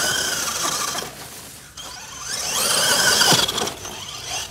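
Electric motor and gear drivetrain of an RC4WD Carbon Assault RC monster truck whining under throttle: the whine fades about a second in, then comes back loud about two seconds in with its pitch rising and falling as the throttle is blipped.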